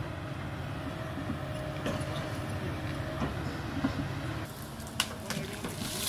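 Kobelco 220 excavator's diesel engine running steadily as the machine works its boom, with a few sharp clanks, the loudest about five seconds in.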